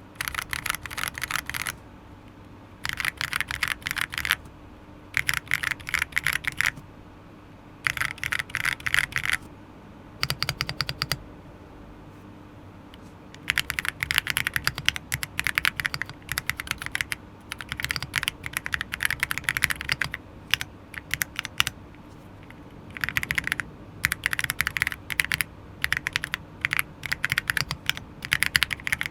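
Typing on a Monka 6067 gasket-mount aluminium mechanical keyboard fitted with unlubed Akko CS Jelly White linear switches and Key Tok pixel keycaps: quick runs of key clacks in bursts lasting one to a few seconds, with short pauses between them.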